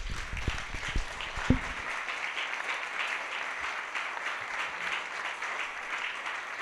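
Audience applauding steadily, with a few low knocks in the first second and a half.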